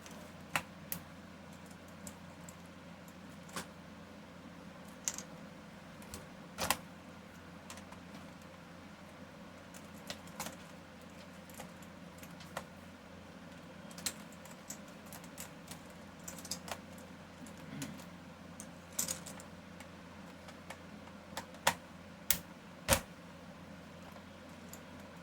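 Irregular clicks and taps from a computer keyboard being handled and its keys pressed, one every second or two, the loudest near the end, over a steady low hum.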